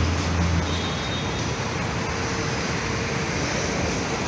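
City street traffic: a steady rush of passing vehicles, with a low engine drone that fades out about half a second in.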